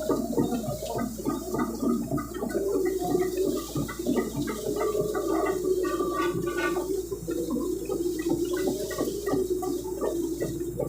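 Excavator at work clearing land: its engine drones steadily under load while many short irregular cracks and snaps sound over it.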